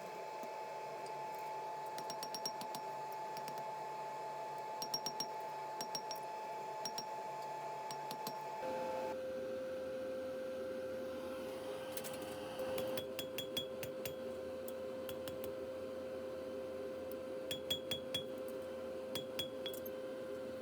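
Stainless steel skewers clinking against one another in small clusters of light, ringing metallic taps, over a steady hum that drops to a lower pitch about nine seconds in.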